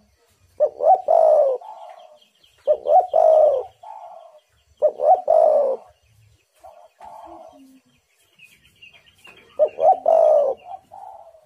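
Spotted dove (tekukur) cooing: four loud phrases of its song, the first three about two seconds apart and the last after a longer pause, with softer coos in between. Faint high chirping sits above them.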